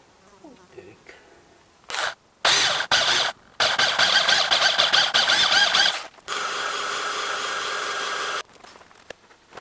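A corded drill spinning a rubber decal eraser wheel against a truck door's paint, squealing in loud, wavering bursts as it rubs off baked-on decal residue. After a sudden cut, a heat gun blows steadily for about two seconds.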